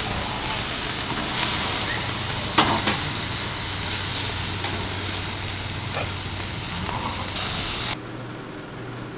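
NY strip steaks sizzling on a grill, with a few sharp clicks of metal tongs against the grate as the steaks are turned. The sizzle cuts off suddenly near the end, leaving a quieter low hum.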